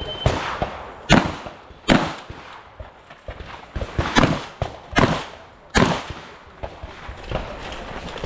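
Shotgun shots on a competition range: a string of sharp reports with echoing tails, several loud ones roughly a second apart, two pairs among them, and fainter shots between.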